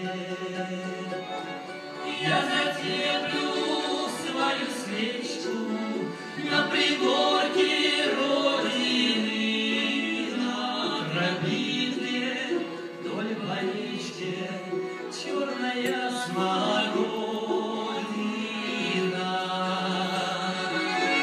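A small group of voices, a woman and men, singing a Russian folk song in harmony to accordion accompaniment, performed live.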